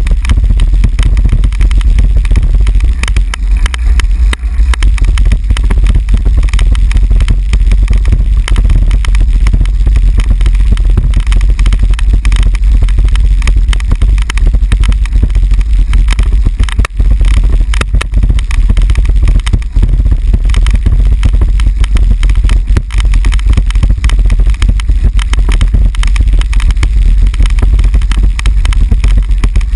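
Bicycle rolling over cobblestones, heard through a camera mounted on the bike: a loud, constant low rumble with a dense rattle of small jolts.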